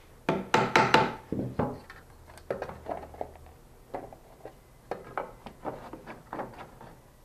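Wooden knocks on a stretcher-bar frame: a quick run of four sharp knocks near the start, then scattered lighter taps and knocks as the frame's corner joints are worked square.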